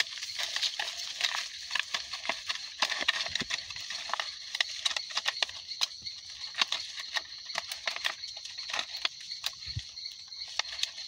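Plastic tape and a cut plastic bottle crinkling and crackling as they are wound and tied around a tree branch: a quick, irregular run of small clicks and rustles over a steady high-pitched hiss.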